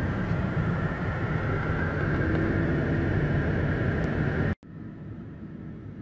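A dense swarm of honeybees buzzing around and against a car, heard from inside the cabin as a steady drone. About four and a half seconds in it cuts off abruptly, and a quieter drone follows.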